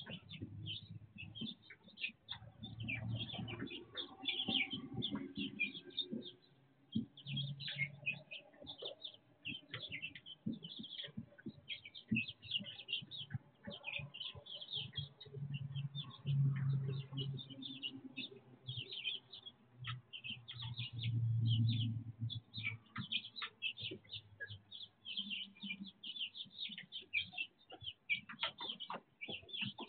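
A flock of young chickens peeping over and over, short high calls coming thick and fast, with a low rumble swelling now and then beneath them.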